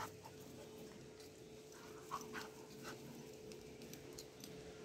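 Faint sounds of young puppies at play, with a few short whimpers close together about two seconds in and another near three seconds.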